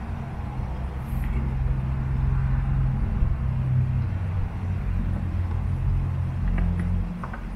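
Low engine rumble of a motor vehicle running close by, swelling about a second in and easing off near the end, with a few light clicks near the end.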